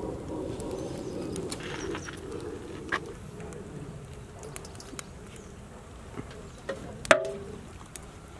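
Light handling clicks as eggs are set on a pot of biryani, then one sharp metal clink about seven seconds in, likely the steel bowl knocking against the pot, which rings briefly. Outdoor background noise with birds runs underneath.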